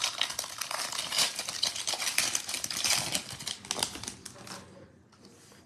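Foil trading-card pack being torn open and crinkled by hand: a dense run of small crackles and clicks that fades out after about four and a half seconds.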